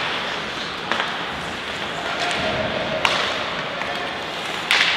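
Ice hockey play: sharp clacks of sticks and puck about a second in and again about three seconds in, and a louder bang near the end, over the steady noise of the rink.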